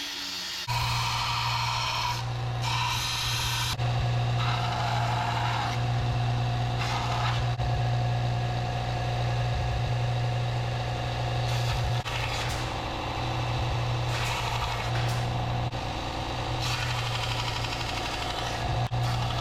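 Belt sander running with a used 60-grit belt while a steel knife blank is ground to shape. The motor sets in with a steady hum about a second in. The grinding noise over it swells and eases as the steel is pressed to the belt and lifted off.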